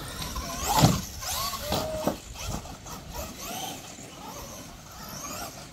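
RC monster truck's motor whining, its pitch rising and falling with the throttle, with a sharp knock about a second in.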